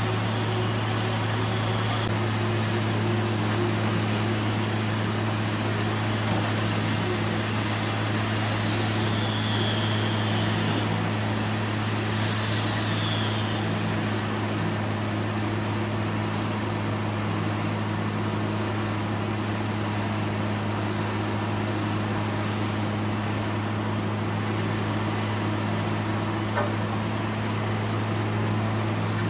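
A steady engine drone at a constant pitch, unchanging throughout, with a few faint high squeaks near the middle.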